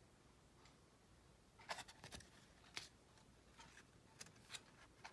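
Faint, short clicks and slides of tarot cards being handled, the cards sliding and tapping against one another, starting about a second and a half in.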